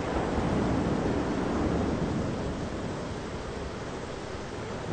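Thunderstorm ambience: a low, steady rushing noise with no distinct strikes, swelling a little in the first two seconds and then easing.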